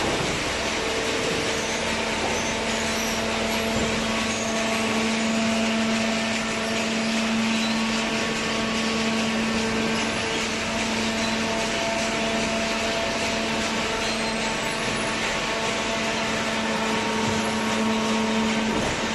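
Hydraulic baler's electric motor and pump running steadily, a constant hum with a fixed pitch over a hiss.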